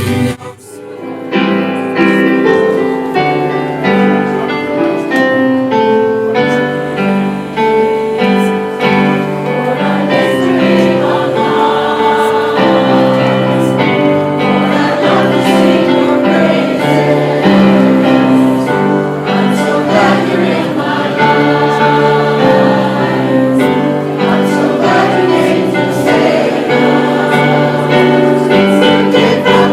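Church choir singing a hymn with instrumental accompaniment, held chords changing every second or so; it starts up after a short dip within the first second.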